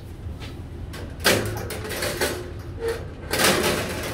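Stainless-steel extractor filter grills knocking and clattering against each other and a dish rack a few times, the loudest about a second in and again near the end, over a steady low hum.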